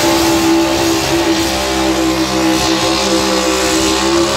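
Pickup truck engine held at full throttle at a steady, high pitch, pulling a weight-transfer sled down a dirt track.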